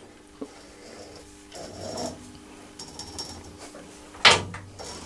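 Lathe die holder being worked by hand to cut an M10 thread on a bar: faint metallic clicks and scraping, with a sharp knock about four seconds in.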